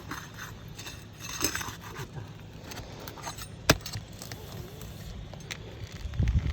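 Hand work on asphalt roof shingles: scattered light clicks and rustling, with one sharp click about three and a half seconds in and a short low rumble near the end.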